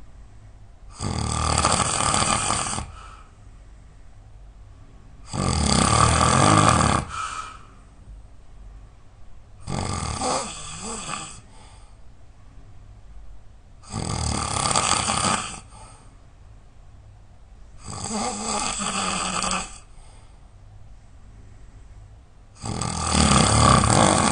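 A person snoring really loud in their sleep: six snores in a slow, even rhythm, one about every four seconds, each lasting under two seconds.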